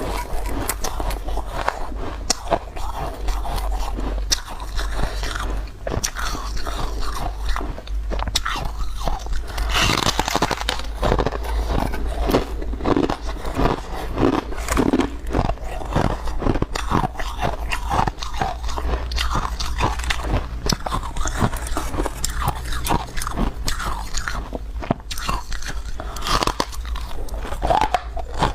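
Chunks of powdery shaved ice being bitten and chewed close to the microphone: a continuous run of crisp, irregular crunches.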